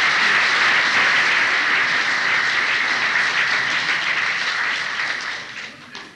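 Audience applauding: dense, steady clapping that dies away near the end, heard on an old cassette recording.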